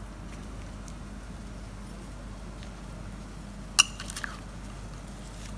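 Spoon stirring chana chaat in a pot: soft wet squishing, with one sharp metallic clink of the spoon against the pot about four seconds in, followed by a few lighter taps.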